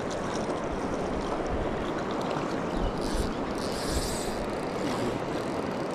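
Steady rush of river water, with a few brief higher hissing patches around the middle.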